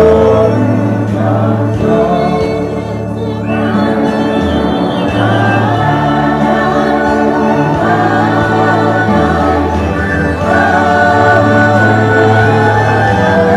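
Gospel praise team of mixed male and female voices singing together through microphones, holding long notes in harmony over sustained low notes.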